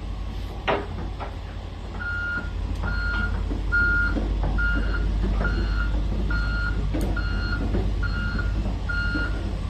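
Komatsu PC450-8R crawler excavator's warning alarm beeping steadily, starting about two seconds in at roughly one to two beeps a second, over the diesel engine's low running rumble. A couple of sharp clicks also sound. Such an alarm signals the machine moving.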